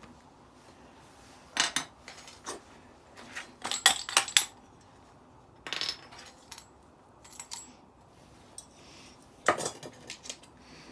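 Metal parts of a decking light being handled and set down, clinking and knocking: scattered sharp clinks, with a quick run of them about four seconds in and another near the end.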